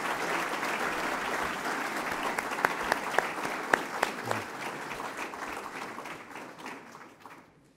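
Audience applause, steady with a few sharper individual claps standing out, fading away over the last couple of seconds.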